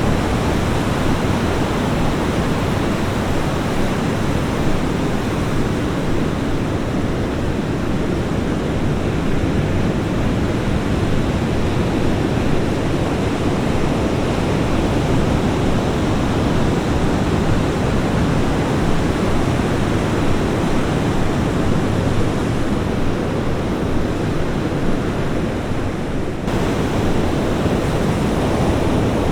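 Ocean surf washing onto a beach: a steady, unbroken rush of breaking waves, with a sudden shift in the sound near the end.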